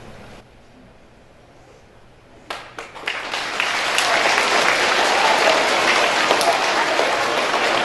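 Audience applauding: a few scattered claps about two and a half seconds in, swelling within a second into full, steady applause.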